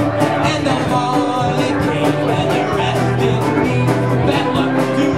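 Irish folk band playing live: fiddle and flute carrying the melody over steadily strummed acoustic guitars.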